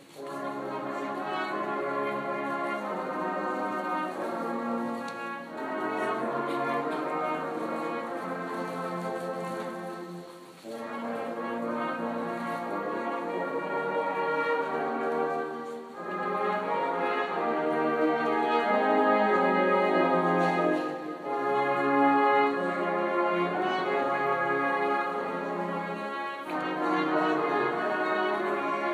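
Marching band's brass line, trumpets and a euphonium-type horn, playing a tune together in phrases with short breaks about ten and sixteen seconds in, growing louder in the second half.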